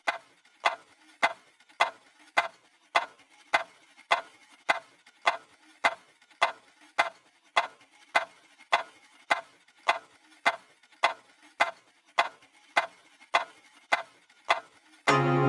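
Steady, even ticking, a little under two ticks a second, like a clock, with near silence between the ticks.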